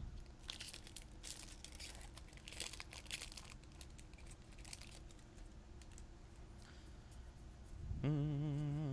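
Soft rustling and crinkling of trading cards and their pack wrapper being handled, mostly in the first few seconds. About eight seconds in, a man starts humming one steady low note.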